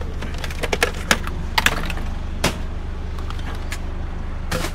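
Hard plastic and metal electronics being handled and knocked together, a run of sharp clicks and clatters in the first half and another knock near the end, over a steady low engine hum.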